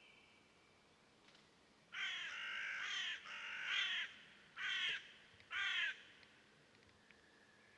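A bird giving four harsh, crow-like caws, the first two long and the last two short, starting about two seconds in.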